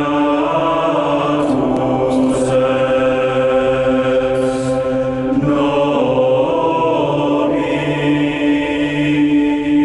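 Music: slow, sustained vocal chanting in a choir-like style, long notes held and changing pitch a couple of times.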